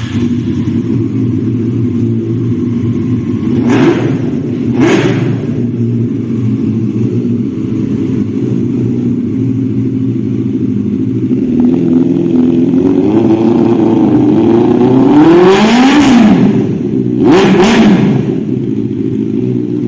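Benelli 600i motorcycle's inline-four engine idling through its exhaust, with two quick throttle blips a few seconds in, a longer rev that rises and falls about two-thirds through, and another short blip near the end.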